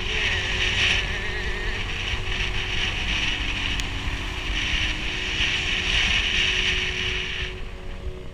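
Motor scooter engine running under way uphill, with wind rushing over the microphone, and a steady high hiss that stops shortly before the end.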